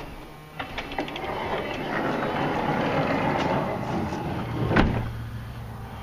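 Honda Odyssey power sliding door running on its motor: a few clicks, then a steady mechanical whir as the door travels, ending in one loud clunk near the end. The door is failing to latch shut.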